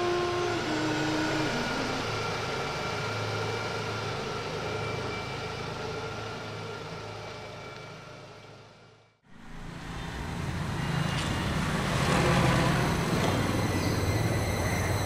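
Steady road-traffic noise, a low rumble of passing vehicles, that fades down to silence about nine seconds in and fades back up again.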